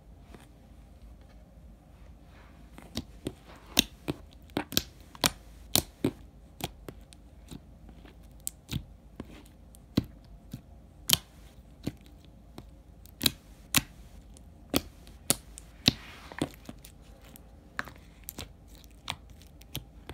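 Glossy slime being squished and pressed by hand, giving sharp wet pops and clicks that come irregularly, about one or two a second, starting a couple of seconds in.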